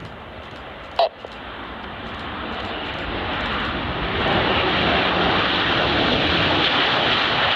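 Jet engines of a Boeing 737-800 airliner on landing, a roar that grows louder for the first few seconds and then holds steady and loud. A brief sharp click comes about a second in.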